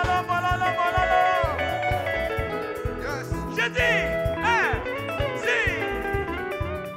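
Live gospel band music led by guitar over a steady bass line, with several high notes that slide down in pitch.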